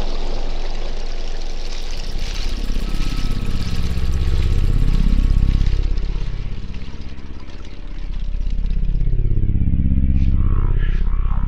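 Dark ambient drone music: a deep synthesizer drone that swells twice, with slowly sweeping tones crossing over it and a hissy noise layer that fades out about halfway, then a quick pulsing pattern starts near the end.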